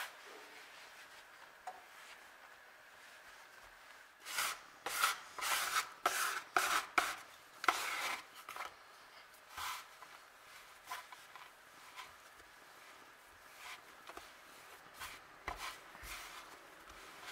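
A plastic bench scraper scraping crumbly shortcrust dough across a wooden pastry board, in a run of quick strokes from about four seconds in. After that, hands pressing and kneading the dough into a ball, with soft scattered taps.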